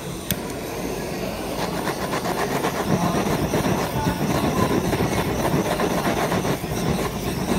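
Handheld butane kitchen torch blowing a steady, hissing flame, louder from about two to three seconds in. One sharp click comes just after the start.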